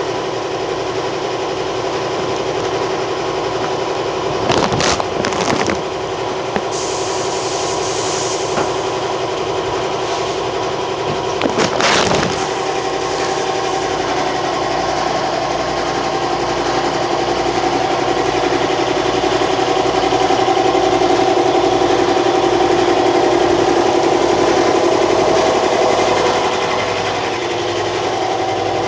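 Motor of a spray-painting rig running steadily, with a few sharp knocks about five and twelve seconds in. It grows louder during the second half.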